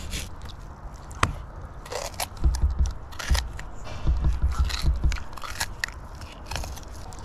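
A whole salmon being scraped with a knife and handled: scattered scrapes and clicks, with a few dull knocks around the middle.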